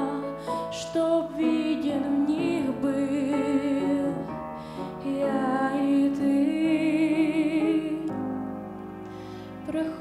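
Slow sacred song: a female solo voice holding long notes with vibrato over a piano accompaniment.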